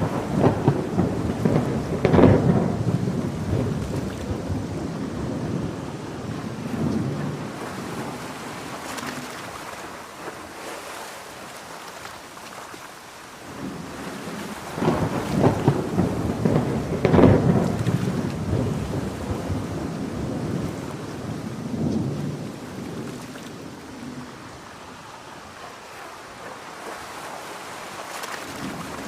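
Thunder in a heavy rainstorm: two long rolls, each breaking with a crackle and rumbling away over several seconds, about fifteen seconds apart, over a steady hiss of rain, with a third roll starting at the very end.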